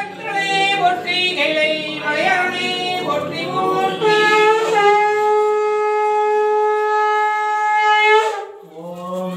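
A ritual conch shell (sangu) blown in worship. For about four seconds the note wavers and bends up and down. It then settles into one long steady tone held for about four seconds and cuts off suddenly.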